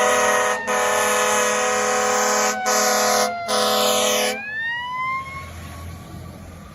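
Fire ladder truck's air horn blasting a loud chord, broken by three short gaps, over a siren winding down. As the horn stops the siren winds back up and holds, fading away as the truck moves off.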